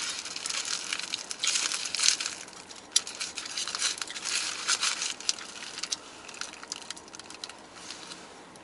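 Paper food wrapper crinkling and rustling in the hands around a Taco Bell item, with crackly clicks and crunchy chewing. Loudest in the first half, growing quieter after about five seconds.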